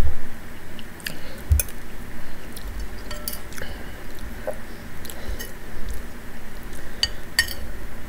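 A metal spoon clinking and scraping against a soup bowl while someone eats: several short, scattered clinks.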